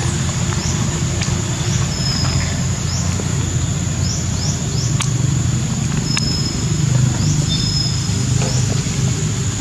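Outdoor ambience: a steady low rumble under a continuous high insect drone, with scattered short, high, falling chirps and a couple of sharp clicks.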